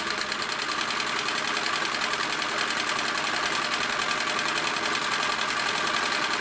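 Necchi 559 household sewing machine running steadily at speed, stitching through fabric in a fast, even rhythm, then stopping abruptly at the very end.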